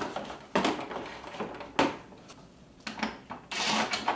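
A UTV inner door panel being held up and fitted against the door frame: a few separate knocks and clunks, then a longer scrape near the end.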